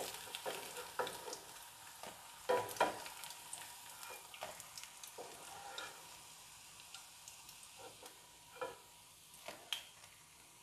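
Hot frying oil in a kadai sizzling faintly just after the flame is switched off, with scattered clicks and scrapes of a spatula against the pan as the last fried chicken pieces are lifted out.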